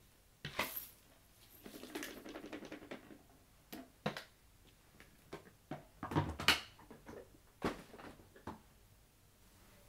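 A cup of small debris bits poured out onto carpet: a sharp first spill, then a dense patter of pieces landing for about a second, followed by a few separate clicks and knocks.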